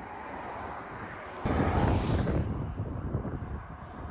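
Wind on the microphone mixed with road traffic, a steady rush that turns abruptly louder about a second and a half in.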